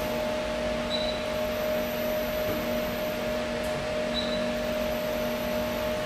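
Steady machine hum with a constant low drone and a higher steady tone over an even noise, unchanging throughout, with two faint short high chirps about a second in and about four seconds in.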